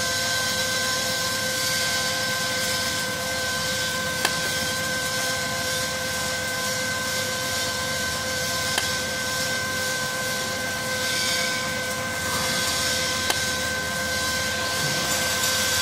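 Welding wire feeder's drive motor and rolls running, pushing flux-cored wire with a steady whine that holds one pitch, over a continuous hiss. A short click comes about every four and a half seconds.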